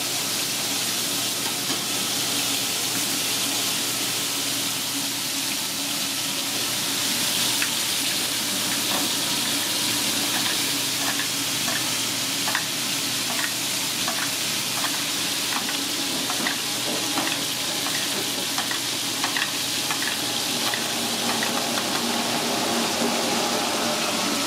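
Steaks searing in a hot skillet with butter: a steady sizzle, joined from about seven seconds in by frequent small crackling pops of spitting fat.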